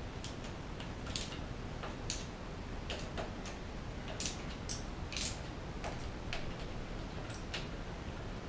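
Scattered light clicks and ticks, irregularly spaced, of a tool working on a hybrid bike's handlebar stem bolts as they are tightened down.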